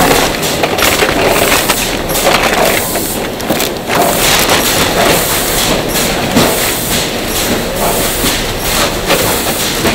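Packing-line noise in a burger-patty factory: patties clattering on a steel tray and into plastic bags with bag rustling, over a steady wash of machine noise. It is dense, with many small knocks throughout.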